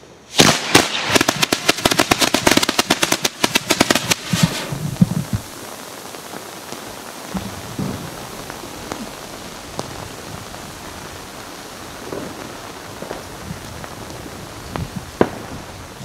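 Pyrotechnic waterfall of two 4.5 m lengths lighting up: a dense run of sharp cracks for about four seconds, then a steady hiss of falling sparks with scattered pops and one sharp crack near the end.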